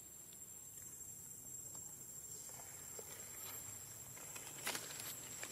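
A steady high insect tone under faint rustles in grass and dry leaves, the loudest a brief crackle of leaf litter near the end.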